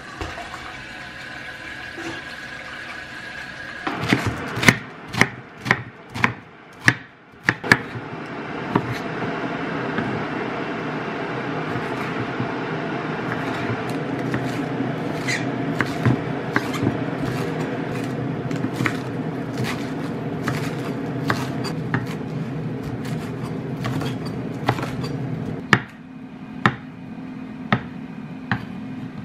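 Tap water running into an electric kettle at the sink for the first few seconds, then a run of sharp clicks and knocks. After that, a kitchen knife chops coriander and olives on a wooden chopping board in quick strikes, over a steady rushing noise from the kettle heating up, which drops away near the end.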